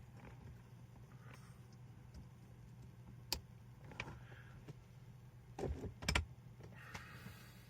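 Faint handling sounds from working on a light fixture and its wiring: a sharp click a few seconds in, a softer knock, then a cluster of knocks about six seconds in, over a low steady hum.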